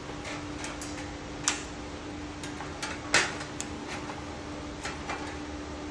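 Scattered light clicks and taps of welded 18-gauge sheet-steel pieces being handled, the loudest about three seconds in, over a steady low hum.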